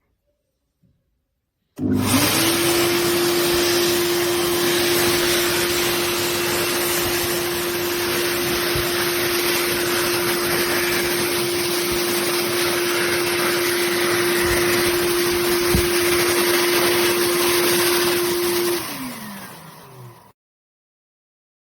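anydry 2065 double-sided hand dryer's high-speed motor starting about two seconds in and running steadily: a strong rush of air with a steady whine. Near the end it switches off, the whine falling in pitch as the motor spins down and the air dies away.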